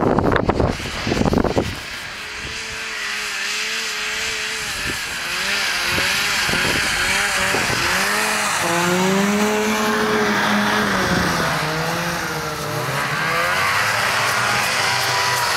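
Snowmobile engines running and revving, their pitch wavering up and down as the sleds move over the snow, loudest around ten seconds in as one comes close. Wind buffets the microphone in the first couple of seconds.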